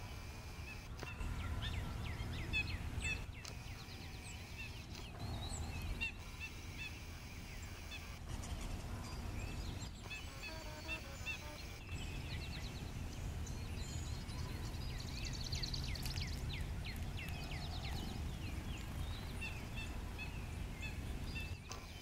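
Small songbirds chirping and calling: short, high chirps repeated in quick runs, one after another.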